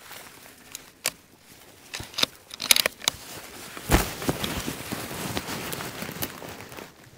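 Handling noise from a rifle being settled onto a log and a hunter getting into a shooting position among tussock: clothing and dry grass rustling, with a few sharp clicks and knocks, the loudest about four seconds in, then steady rustling.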